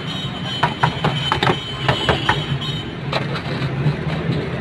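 Irregular sharp knocks and clicks, clustered in the first two and a half seconds with one more around three seconds in, over a steady low hum.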